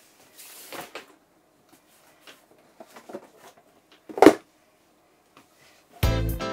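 Handling noises as a camera bag and a boxed monitor are put down on a wooden floor: rustling and a few light knocks, then one loud thump a little over four seconds in. Music with a steady beat starts near the end.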